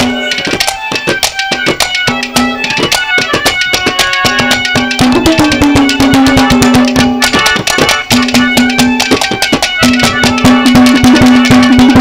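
Live Haryanvi ragini band playing an instrumental interlude: fast hand-drum strokes over sustained melodic notes, one long low note dipping in pitch about five seconds in, growing slightly louder toward the end.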